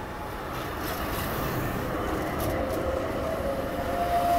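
TMK 2100 tram pulling away and passing close by, its electric drive whining and rising in pitch as it speeds up, over the rumble of steel wheels on the rails. The sound grows louder as the tram comes alongside, with a few light clicks from the running gear about halfway through.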